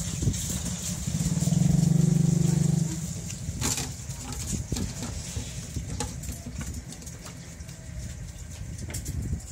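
A motor vehicle's engine running over a low rumble, with a loud steady drone for about a second and a half a second in. Scattered sharp knocks and clicks follow.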